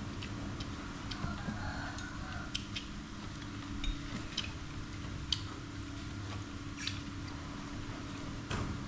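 Chopsticks and spoons clicking and tapping against bowls and plates during a meal, in scattered irregular clinks over a steady low hum.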